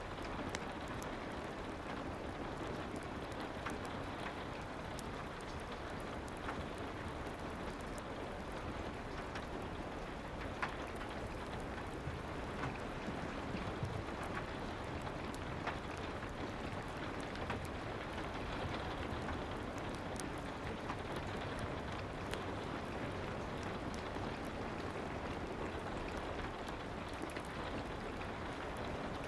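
Steady soft rain, with scattered small pops and crackles of a fireplace.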